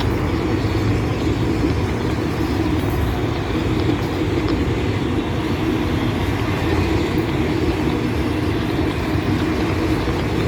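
CSX freight train of autorack and intermodal cars rolling slowly past into the siding, with a steady low rumble.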